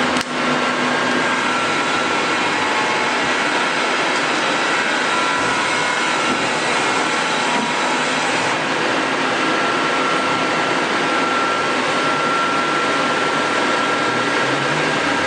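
Amera Seiki T415 CNC lathe running under power: a loud, steady whir with a faint high whine, and one sharp click just after the start.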